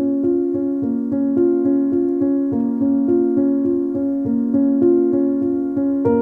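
Intro music: a light keyboard tune of evenly repeated notes, about three a second.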